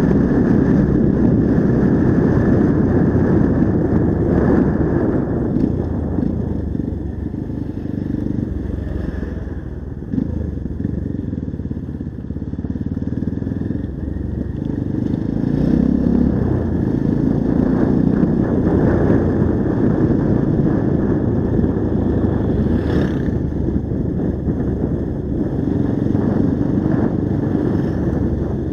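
Honda XR 150's single-cylinder four-stroke engine running as the motorcycle is ridden along a road. The engine eases off for a few seconds about a third of the way through, then picks up again.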